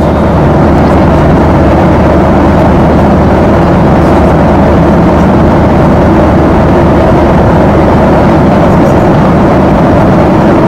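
Steady engine and air noise inside an airliner's passenger cabin: loud and even, with a low hum beneath it.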